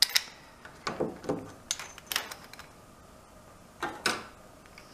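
Hard plastic mounting bracket and brass ball valve clicking and knocking together as they are handled and fitted: a scatter of separate clicks and light knocks.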